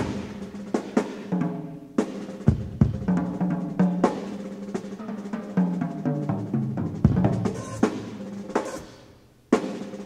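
Solo drum kit in a live concert recording off cassette tape: busy fills around the toms with repeated cymbal crashes. Near the end the playing thins and fades, then comes back in with a hard hit.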